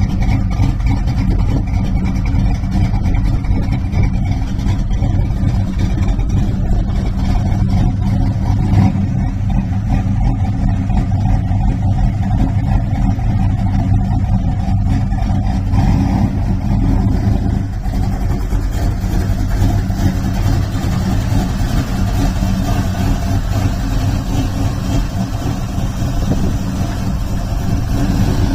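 A Pontiac V8 engine idling steadily.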